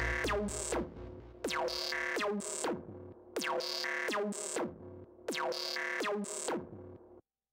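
Electronic pop music ending: a synthesizer phrase with falling pitch sweeps repeats four times, then the track cuts off into silence about seven seconds in.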